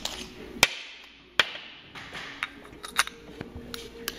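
Metal parts of a gold mechanical vape mod being handled: a few sharp clicks and knocks, two louder ones in the first second and a half, then lighter taps as a battery is loaded into the mod's tube.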